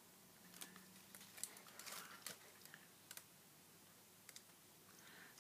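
Near silence: room tone with faint, scattered small clicks, a dozen or so, mostly in the first three seconds.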